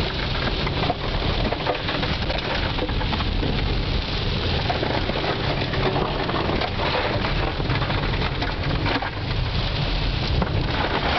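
1996 Toyota Tercel driven hard over wet gravel in heavy rain: a steady rush of tyre and water noise, with loose gravel clattering against the car in many small hits.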